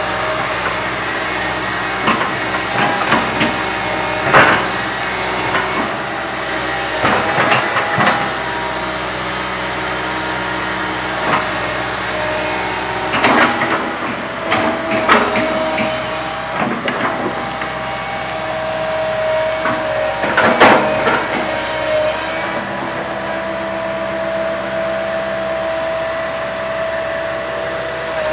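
Komatsu PC160 hydraulic excavator working, its diesel engine running steadily under a whine that comes and goes. Sharp clanks and knocks, some in quick clusters, break in at irregular moments.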